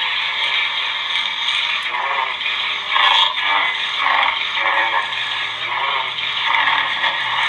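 Lightsaber sound font 'Saber Storm (Rain Sizzle II)' played by a Crystal Focus sound board: a steady, crackling, sizzling idle hum. From about two seconds in, a run of swelling swing swooshes rides on the hum as the blade is waved.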